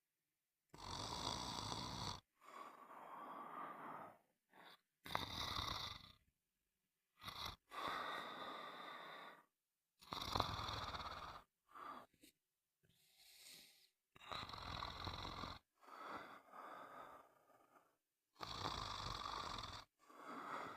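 Snoring in a repeating rhythm: a loud snore about every four to five seconds, with softer breathing sounds between them.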